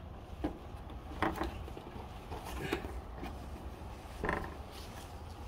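Plastic bug deflector creaking and clicking as it is pressed against the hood and its clip pushed into place: a handful of short creaks and clicks spread over several seconds.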